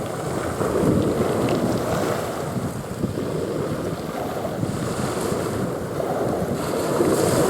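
Wind buffeting the microphone over the wash of sea waves, in uneven gusts.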